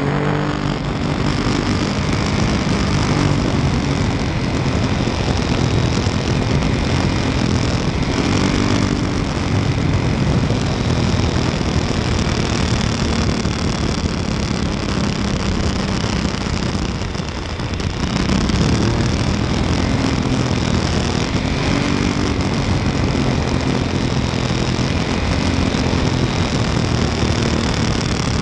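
Motorcycle engine heard from on board while riding, its pitch rising and falling with the throttle through the bends, over a steady rush of wind and road noise. The engine briefly drops away about seventeen seconds in, then picks up again.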